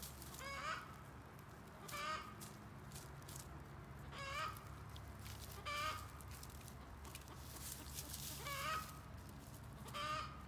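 Hens clucking while they forage: six short clucks spaced about one and a half to three seconds apart, over faint rustling and scratching in dry leaf litter.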